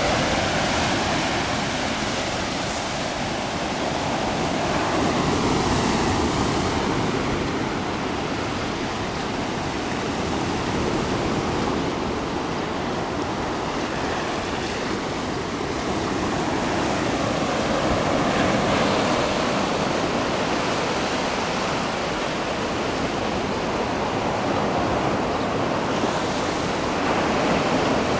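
Ocean surf breaking on a beach: a continuous wash of waves that swells and eases every several seconds.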